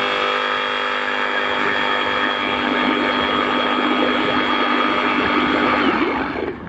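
FLEX FX2271 24-volt cordless reciprocating saw running with its front end held in water, the motor whining at a steady pitch while the moving blade churns and splashes the water. About six seconds in, the motor winds down and stops.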